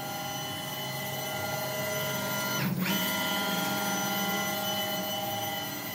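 Steady electric motor whine made of several tones held at one pitch, with a short break about three seconds in.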